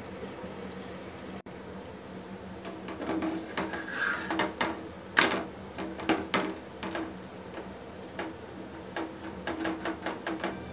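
An aloo paratha sizzling faintly in a pan, then from about three seconds in a flat spatula repeatedly scraping and tapping against the pan as the paratha is pressed and turned.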